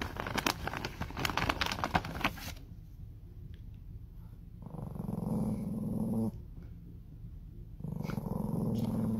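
A plastic snack bag crinkles for the first couple of seconds. Then a small dog growls twice, each growl about a second and a half long, at a cucumber and then a green fruit held in front of its face.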